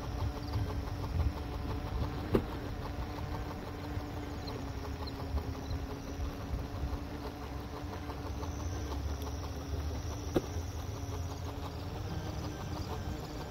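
Halo Rover hoverboard rolling along a concrete path: a steady hum from its motors over the rumble of the wheels, with two sharp knocks about eight seconds apart as the wheels cross seams in the concrete.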